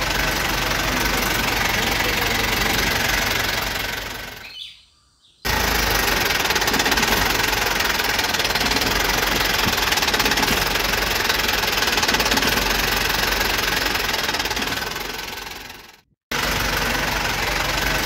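Engine running with a dense, steady noise. It fades out about four and a half seconds in and starts again abruptly a second later, then fades and cuts back in abruptly again near sixteen seconds.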